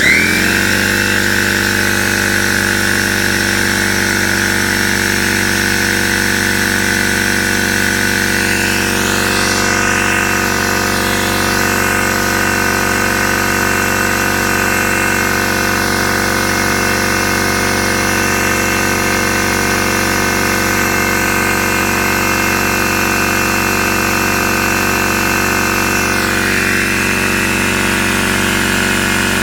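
Electric air compressor switching on and running steadily with a loud, even motor drone, inflating a low car tire from about 25 psi to top it off.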